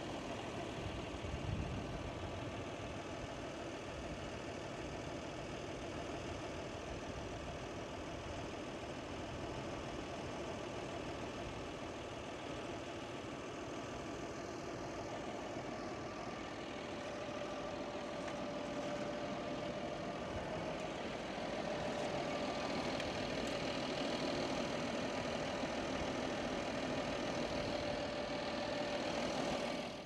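Fendt tractor's diesel engine idling steadily, with a steady whine over it that grows a little louder about two thirds of the way in.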